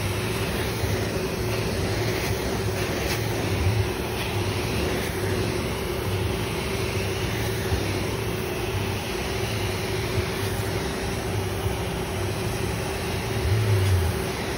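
Carpet-cleaning extraction wand passing over commercial carpet, its vacuum suction pulling up the cleaning water as a steady rush with a steady hum underneath, a little louder near the end.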